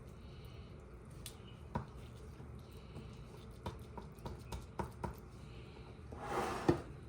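Faint handling sounds of raw ground meat being worked into a muffin tin by hand: scattered light clicks and soft squishes, with a short hiss-like noise near the end.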